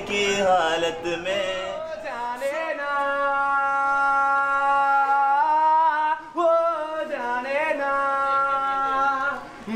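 A young man singing unaccompanied, one voice with wavering ornaments that settles into two long held notes lasting a couple of seconds each.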